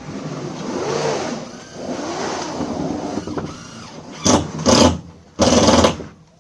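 An engine running with its pitch rising and falling, followed by three loud hissing bursts, the last and longest about half a second.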